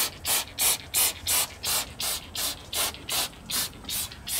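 Plastic trigger spray bottle pumped rapidly, giving short hissing squirts of cleaner at about three a second in an even rhythm.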